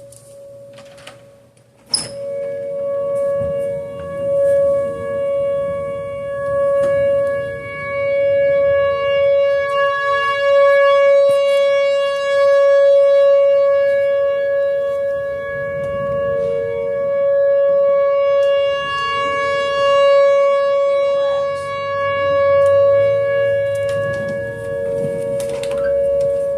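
A mini cyclone siren sounding a steady two-note tone. It switches on with a sharp click about two seconds in, then swells and fades every couple of seconds.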